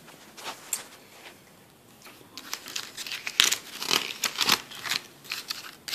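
Thin paper sheets of a Cricut cartridge booklet and its folded leaflet being handled and turned, rustling and crinkling in a run of short bursts that starts about two seconds in.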